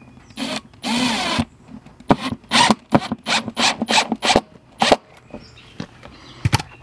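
Milwaukee cordless driver driving the screws of a hose hydrant's face plate into the house wall. The motor spins up and down about a second in, then runs in a string of short pulses as the screw is snugged down.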